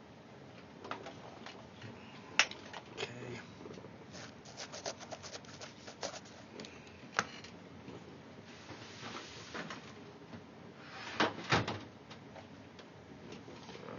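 Scattered clicks, taps and knocks of small objects being handled and set down, with a brief rustling hiss about nine seconds in and a few sharper knocks about eleven seconds in.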